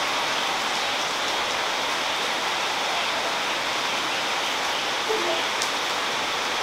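A steady, even hiss of rushing noise, with a few short musical notes about five seconds in.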